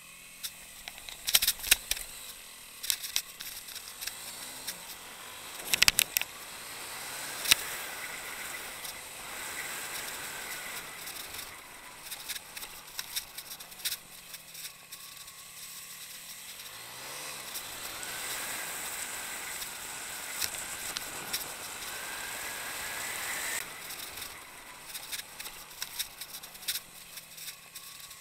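Motorcycle ridden over a rough dirt track: sharp knocks and rattles from the bumps, the loudest clusters about 1.5, 6 and 7.5 seconds in, over a faint engine note that rises and falls.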